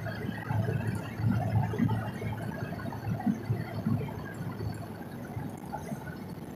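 Steady low drone of engine and tyre noise inside the cab of a 2001 6.6 L Duramax V8 turbodiesel dually pickup being driven.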